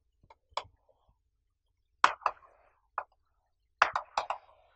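Chalk tapping and scraping on a chalkboard as words are written: a string of sharp clicks with short scratches between them. The loudest click comes about two seconds in, and a quick run of four comes near the end.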